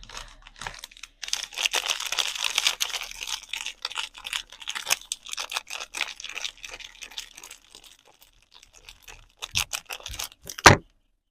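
Soap packaging being unwrapped: wrapper crinkling and tearing in a dense crackle that thins to scattered rustles, then a few sharp taps near the end, the last one the loudest.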